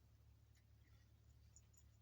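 Near silence: room tone with a steady low hum and a few very faint ticks.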